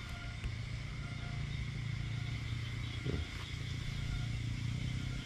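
A steady low engine hum that swells slightly in the middle, with a faint steady high tone above it.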